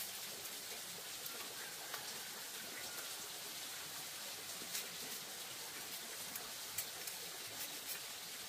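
Light clicks and taps of thin bamboo strips being handled and laid against each other, scattered over a steady hiss of outdoor background noise.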